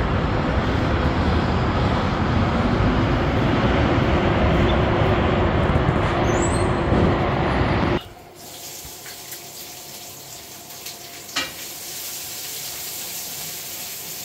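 Steady loud rushing noise of city street traffic heard from high above, cutting off suddenly about eight seconds in. Then quieter sizzling of food frying in a pan on a gas stove, with a spatula clicking against the pan now and then.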